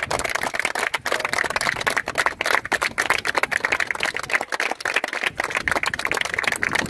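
A small group clapping hands: steady applause made of many quick, separate claps.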